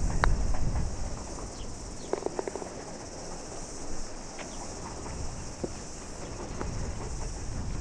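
A putter strikes a golf ball once, a sharp click just after the start, over a steady high-pitched chorus of insects.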